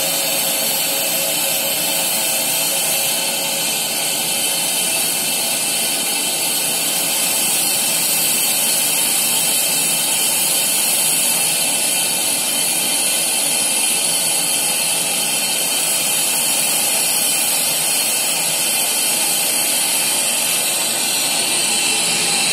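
Steam locomotive standing with steam escaping, a loud, steady hiss.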